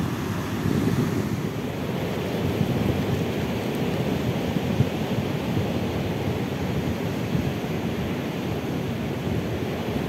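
Black Sea surf breaking and washing steadily onto a pebble shore, with wind buffeting the microphone.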